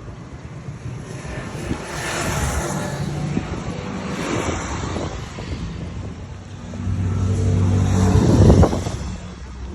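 Engine fitted with a CNC-machined cylinder head and throttle body, revved in three rising swells; the last one, about eight seconds in, is the loudest before it drops back.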